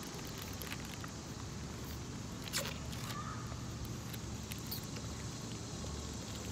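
Steady outdoor background noise with a few faint, light clicks, one sharper click about two and a half seconds in.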